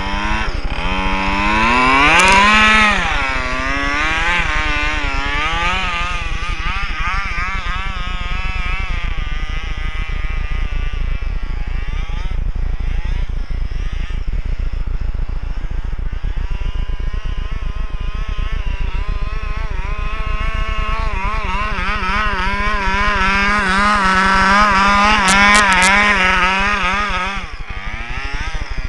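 27cc two-stroke gas engine of a 1/5-scale FG RC buggy revving up and down continually, its pitch rising and falling with the throttle; it is loudest about two seconds in and again near the end.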